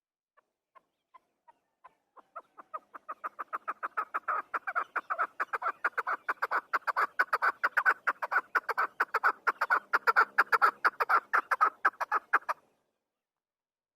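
Chukar partridge calling: a few spaced single clucks that speed up and grow louder into a long, fast run of repeated chuck notes, which stops abruptly near the end.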